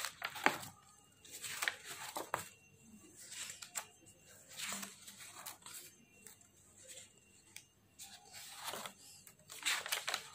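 Paper pages of a handmade project file being handled and turned, a series of crisp rustles and crinkles every second or so.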